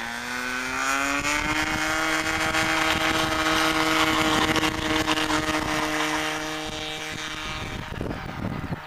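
Motor of a radio-controlled model Cessna 182 opening up for its takeoff run: a steady pitched buzz that rises over the first second or so, holds steady through the roll and climb-out, and is loudest midway as the plane passes close. A short rush of wind-like noise comes near the end.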